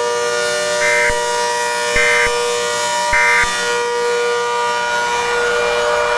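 Three short Emergency Alert System digital data bursts, the end-of-message tones that close an alert, evenly spaced about a second apart. They sound over a steady siren-like drone of fixed tones. A rushing noise builds near the end.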